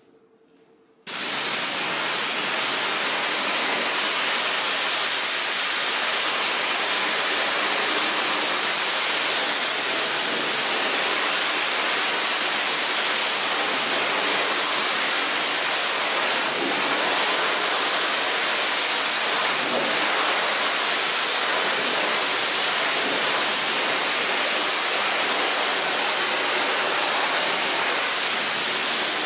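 Water spraying steadily onto a carpet being washed: an even, loud hiss that starts abruptly about a second in.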